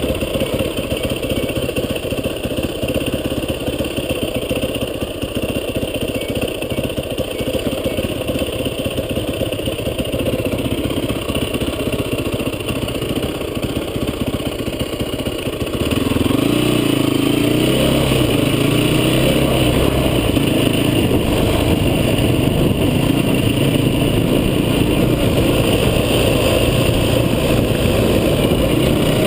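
Off-road vehicle engine running under way, the noise steady, then getting louder a little past halfway as the engine works harder.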